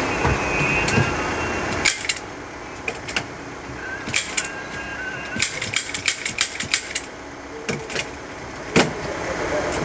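Staple gun firing staples to fix grey felt padding to a sofa frame: a string of sharp, irregular clicks, about a dozen, from about two seconds in. A steady rumbling noise is heard under the start and stops about two seconds in.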